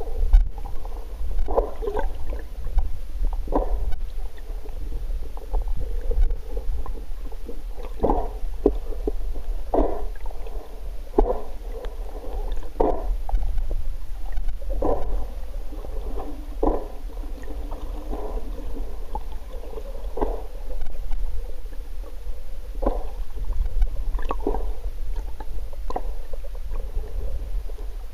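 Muffled underwater sound picked up through a camera's waterproof housing: a steady low rumble with soft, irregular knocks and swishes every second or two as the camera moves through the water.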